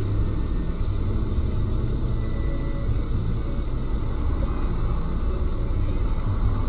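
Steady low rumble of a car idling in stopped traffic, heard from inside the cabin through a dashcam's microphone.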